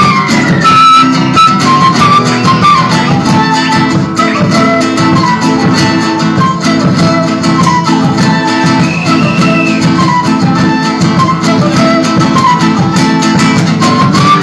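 Andean folk ensemble playing live: a flute melody with sliding notes over strummed acoustic guitars.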